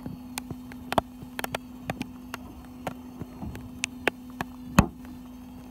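Fishing boat's engine running with a steady low hum, with irregular sharp taps of rain striking close by, one much louder tap near the end.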